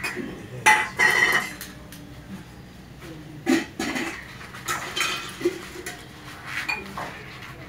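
Brass puja vessels clinking and ringing in several short clatters, the loudest about a second in.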